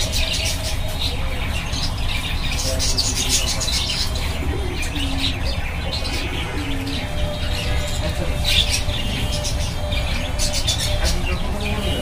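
Budgerigars chirping and chattering in short, repeated bursts of high notes, over a steady low rumble.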